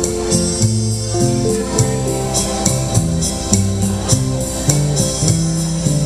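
Rumba dance music: a moving bass line and melody over regular light percussion ticks.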